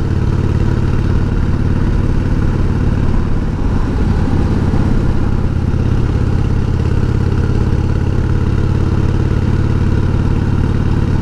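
1988 Harley-Davidson Heritage Softail's 1340 cc Evolution V-twin engine running steadily with the bike under way, heard from on the motorcycle.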